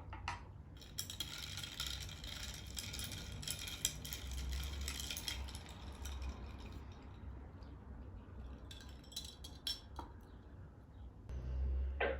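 Glass and dishware clinking and knocking as items are handled and set down, with rustling in between.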